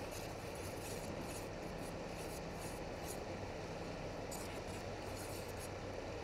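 Steady rush of river water, with faint intermittent scraping and rubbing sounds.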